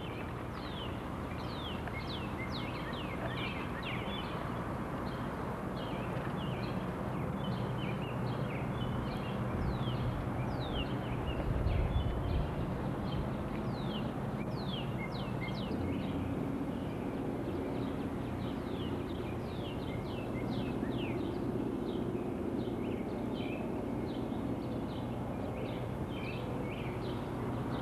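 Several birds chirping and singing at once, many short quick downward-sliding notes throughout, over a low steady rumble, with a brief low thump about twelve seconds in.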